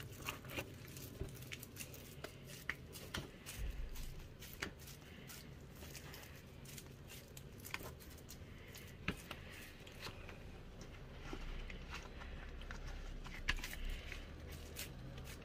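Quiet handling of corn dough in a plastic bowl and of dried corn husks: scattered light clicks and crackles over a faint low hum.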